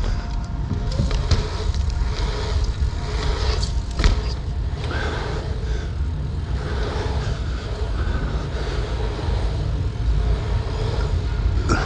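Dirt jump bike being ridden on an indoor pump track, heard through an action camera: a steady low rumble of tyres and air rushing over the microphone, with a few sharp clacks from the bike, the loudest about four seconds in.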